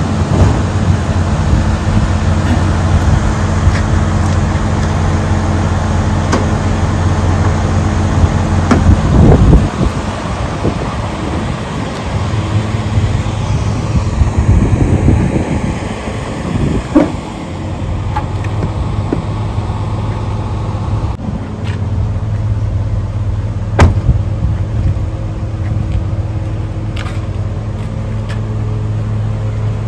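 Diesel semi-truck engine idling with a steady low hum. A few sharp knocks and clanks stand out along the way.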